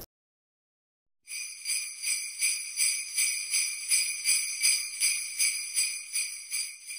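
Sleigh bells shaken in a steady rhythm, about three shakes a second, starting about a second in and fading away near the end.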